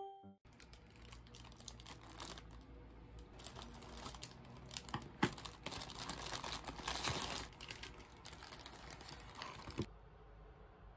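Plastic wrapping of a multi-pack of Nissin instant ramen being handled, crinkling and rustling with scattered clicks and a few sharper taps. It stops about a second before the end.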